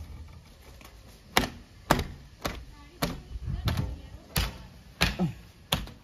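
A string of about seven sharp knocks on the JCB 3DX backhoe loader's cab door and glass as it is wiped down with a cloth, unevenly spaced about half a second to a second apart.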